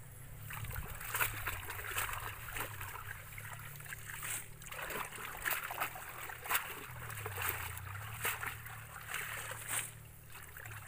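Hands splashing and sloshing through shallow water held in a fine mesh fishing net, with irregular short splashes and drips.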